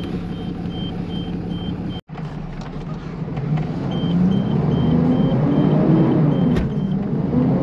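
DAF road sweeper's diesel engine running, heard from inside the cab; after a cut about two seconds in, the revs rise and fall as it is driven. A rapid electronic beeping sounds alongside.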